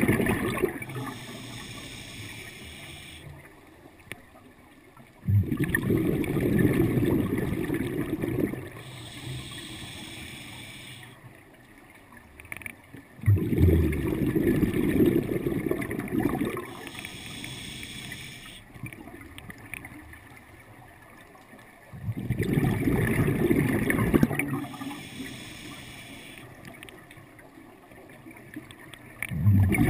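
Scuba diver breathing through a regulator underwater: a hiss on each inhalation, then a sudden rush of exhaled bubbles. The slow breaths come about every eight seconds.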